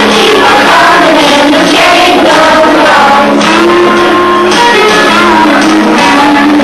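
A group of children singing a song together over a musical accompaniment, loud and steady, with a held low note under the melody.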